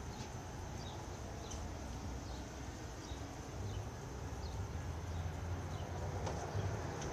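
Muffled rubbing and handling noise from a phone whose microphone is covered, with short high chirps, like small birds, every second or so.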